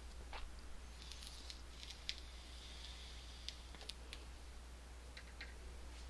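Lock picking in an Assa Twin Exclusive 5701: faint metal scratching of the pick in the keyway about a second in, and scattered small ticks of the picks against the pins, over a steady low hum.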